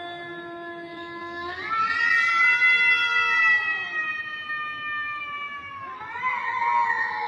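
Cat yowling in long, drawn-out meows: a low held note, then about a second and a half in a long call that rises and slowly slides down over several seconds, and another rising call near the end.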